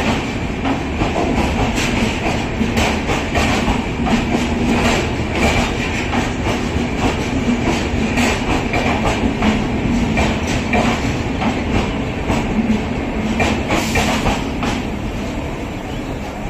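Passenger express of LHB coaches rolling past as it departs, wheels clicking over the rail joints in quick runs of clicks over a steady rumble. It eases off slightly near the end as the last coach goes by.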